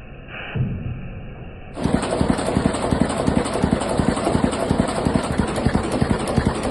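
Boat engine running with a fast, even knocking beat, the characteristic sound that earned it the nickname "Täggelibock". It comes in abruptly about two seconds in; before that there is a quieter, muffled stretch with a single thump.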